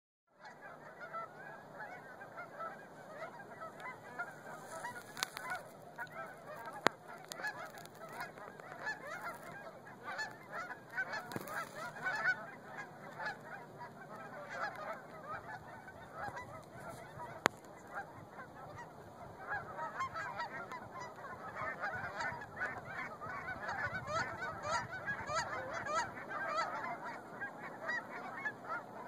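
A large flock of Canada geese on open water honking continuously, a dense chorus of many overlapping calls that grows louder in the second half. Two sharp clicks stand out above it, about 7 and 17 seconds in.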